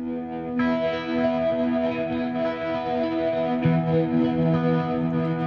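Background music led by an electric guitar with effects and distortion, in long held notes; it grows fuller about half a second in.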